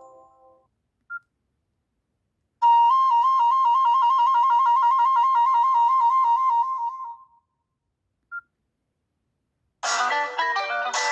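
Nokia C5-00 preset ringtones: a bright electronic trill flipping rapidly between two close notes for about four and a half seconds, with a short beep shortly before and after it. Near the end the next ringtone begins with plucked, guitar-like chords.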